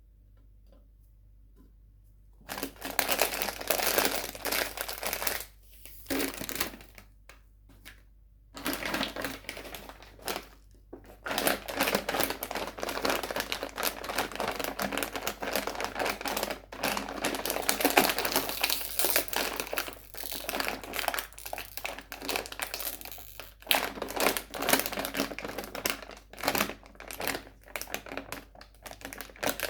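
Sweets and their wrappers crinkling and crackling close to the microphone, starting about two and a half seconds in and running on with a few short pauses.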